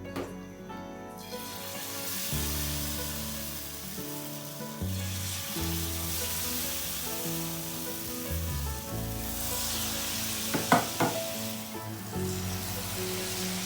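Hot oil sizzling as batter-coated ripe banana slices deep-fry for pazhampori, starting about a second in, with two or three sharp clicks near the end. Soft background music plays underneath.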